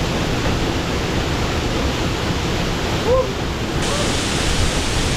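Waterfall's falling water rushing loudly and steadily.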